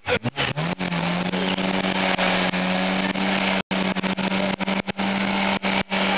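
Seat Toledo 1.8 16-valve four-cylinder engine revved hard in the first second, then held at a steady high rev, with a hiss on top, while the front tyre spins and smokes in a burnout. The sound cuts out for an instant a few times.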